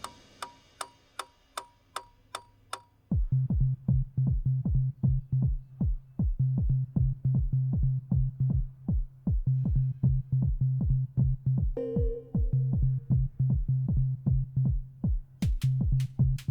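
Electronic drum-machine music. It opens with sharp ticks at about three a second; about three seconds in, a fast, even kick-drum beat comes in over a steady low bass drone, and a brief higher synth tone sounds near the twelve-second mark.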